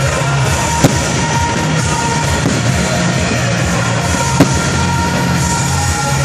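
Aerial firework shells bursting: two sharp bangs about three and a half seconds apart, over a steady din of music.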